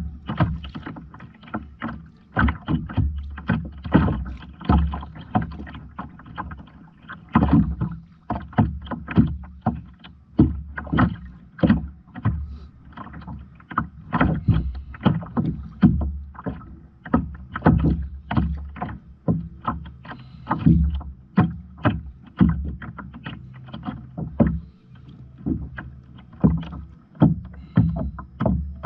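Water splashing and slapping against a fishing kayak's hull, a few sharp irregular splashes a second, over a low steady hum.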